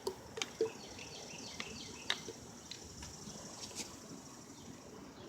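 Faint, steady high-pitched insect chirring, with a few light clicks and taps near the start and scattered through.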